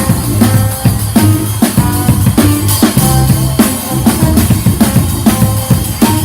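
Brass band playing live: horns playing a melody over a drum kit keeping a steady beat.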